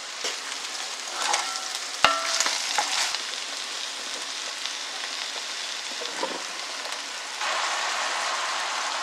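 Chicken and vegetables sizzling in an enamelled cast-iron pot and being stirred with a wooden spoon, with a few sharp knocks of the spoon against the pot in the first three seconds, the loudest about two seconds in. The sizzle grows louder about seven seconds in as the mushrooms go into the hot pot.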